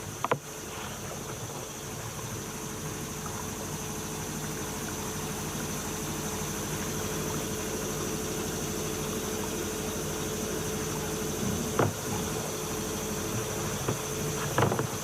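Vapor blasting cabinet running: a steady hiss of glass-bead slurry spraying over a constant machine hum. Three short knocks, one just after the start, one about twelve seconds in and one near the end.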